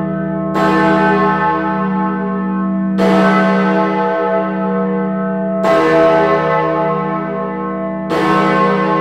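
Great George, a large swinging tower bell, being rung: four heavy strokes about two and a half seconds apart. Each stroke rings on with a deep hum and a shimmer of higher tones that fade slowly and overlap the next stroke.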